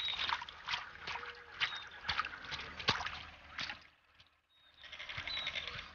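Water splashing in a shallow pool, a series of short sharp splashes that stop briefly about four seconds in and then start again.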